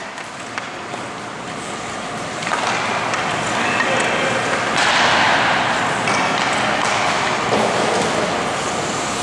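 Hockey skate blades scraping and carving on rink ice, with children's voices in the background; the noise grows louder about two and a half seconds in.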